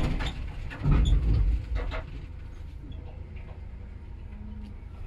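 Heavy thumps and scraping, loudest from about one to two seconds in, over a steady low rumble.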